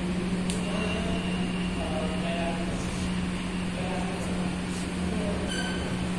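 Steady low hum of background room noise, with a click about half a second in and a brief high ring near the end.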